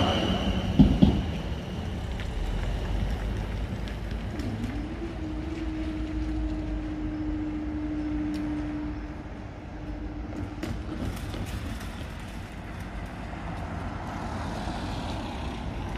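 The last bogies of a Class 444 electric train clatter over the rail joints in the first second, as the crossing's high warning alarm stops. The barrier mechanism then hums steadily for about six seconds while the barriers rise, and a car's tyres approach near the end.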